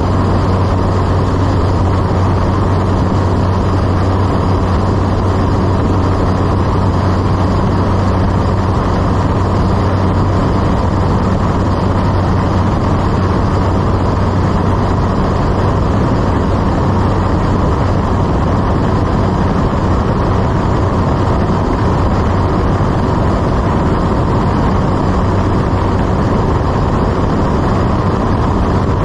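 Steady drone of a single-engine propeller plane in flight, heard from inside the cabin: a constant low propeller hum under engine and airflow noise.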